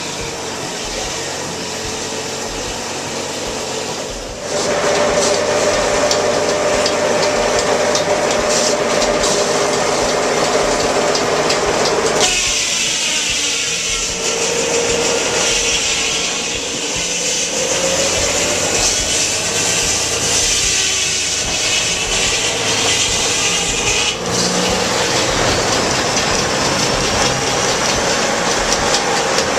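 Restored Hackett and Witham sawmill running and sawing through a log, getting louder about four seconds in as the blade works through the cut.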